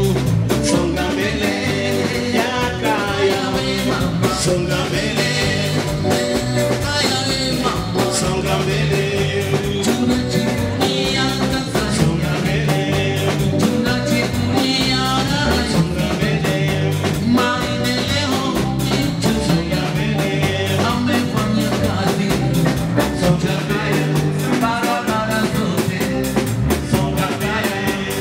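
A live band playing: electric guitar, bass guitar, keyboard and drum kit, with a man singing into the microphone.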